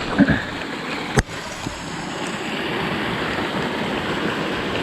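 Mountain stream rushing steadily over rocks, with a single sharp click about a second in.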